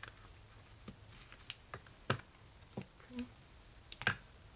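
Scattered light clicks and taps of a plastic gachapon capsule being handled and pried at to open it, the sharpest click about four seconds in.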